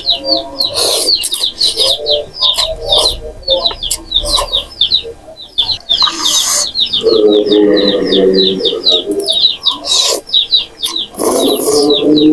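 A small bird chirping rapidly and without pause, about four or five short chirps a second. Loud slurps of noodles come now and then, and a distant voice over a mosque loudspeaker comes in about seven seconds in and again near the end.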